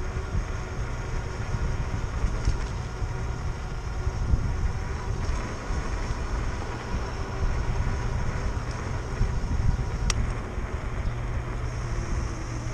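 Wind rushing over the microphone and tyre noise from an electric bike riding along a cracked asphalt street, with a faint steady whine underneath and a single sharp click about ten seconds in.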